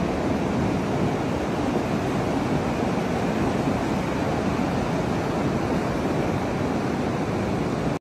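Rushing floodwater from a river over its banks: a steady, even wash of fast muddy water flowing across a flooded road. It cuts off suddenly at the end.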